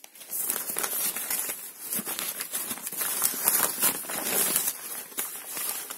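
Crumpled paper wrapping crinkling and rustling as it is handled, an irregular run of crackles.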